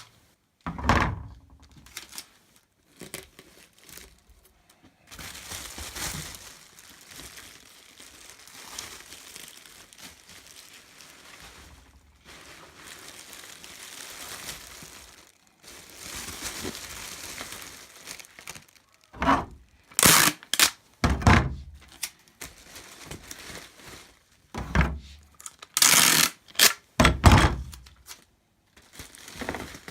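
Bubble wrap being wrapped around a model building, with crinkling and rustling, then a run of short, sharp, loud crackles and thunks in the last ten seconds.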